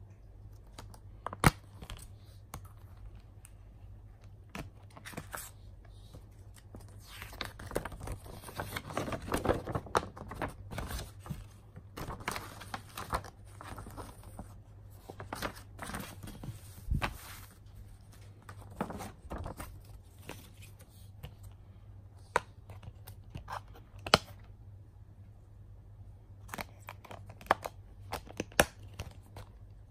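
Plastic shrink wrap being torn and crinkled off a Blu-ray case, densest in the first half, with sharp clicks and snaps of the hard plastic case being handled and opened.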